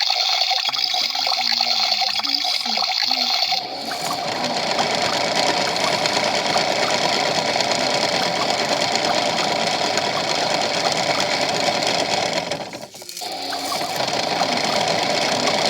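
Toy washing machine playing its electronic wash-cycle sound through its small speaker: a steady rushing, water-like noise with a motor-like whir. The sound changes about four seconds in and briefly drops out near the end before carrying on.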